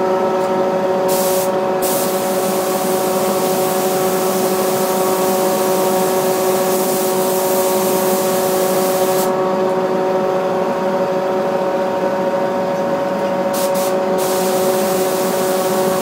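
Air spray gun hissing as it sprays finish onto a Les Paul guitar body: two short bursts, then a long spray of about seven seconds, a pause, then a couple of quick bursts and another spray near the end. A steady mechanical hum runs underneath.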